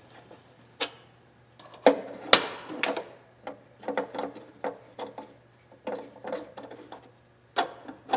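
Irregular metallic clicks and knocks of hand tools and parts being handled while the valve cover is fastened on a 1931 Chevrolet six-cylinder engine, with a few sharper knocks among lighter taps.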